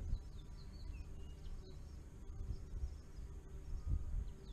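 Outdoor ambience: a low rumble of wind on the microphone that swells a few times, with faint short high chirps from small birds in the first part.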